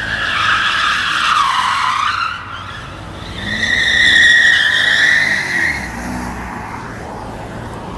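Tyres of a BMW 7 Series long-wheelbase sedan squealing as it drifts sideways, in two long screeches. The first falls slightly in pitch and fades about two seconds in; the second, starting near the middle, is steadier and louder.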